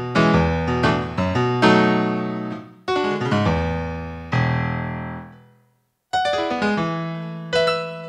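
Roland GR-20 guitar synthesizer's Rock Piano preset, played from a Godin MIDI guitar: a run of piano chords and single notes, each struck and then decaying. The sound dies away to silence for a moment about two-thirds of the way in, then more chords follow.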